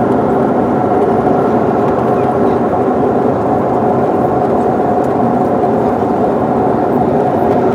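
Airliner jet engines running steadily, heard inside the cabin as a loud, even drone with a steady tone running through it.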